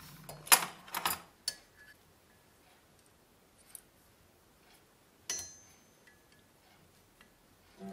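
Small steel parts clicking and knocking against a steel anvil stake as a rivet is set through a small steel plate. There are two sharp knocks about half a second and a second in, a lighter click, then a single short click with a brief metallic ring about five seconds in.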